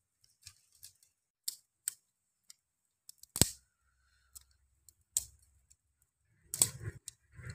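Scattered sharp clicks and snaps, like dry twigs and leaf litter being handled and stepped on. The loudest is a snap with a thud about three and a half seconds in, and a cluster of crackling comes near the end.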